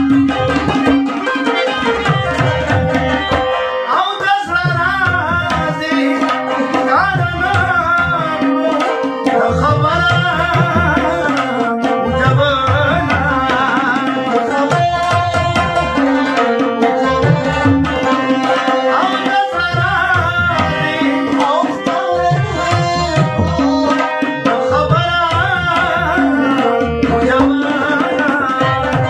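Live Pashto ghazal on tabla, harmonium and rubab. A man sings in long wavering phrases, from about four to twelve seconds in and again from about nineteen to twenty-seven seconds in, while the tabla and the harmonium's held notes play on between them.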